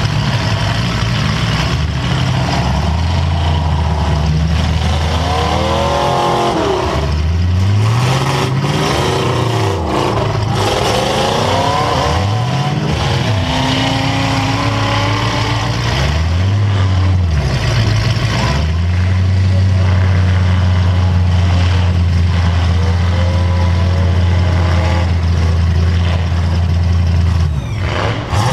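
Demolition derby car's engine heard from inside the car, revving up and falling back several times, then held at high revs for about eight seconds near the end.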